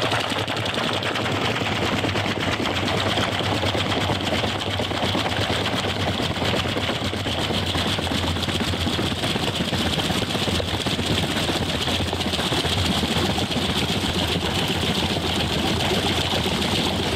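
Small water turbine running under partial admission: steady rushing water with a fast, continuous rattle as water and air swirl into its intake.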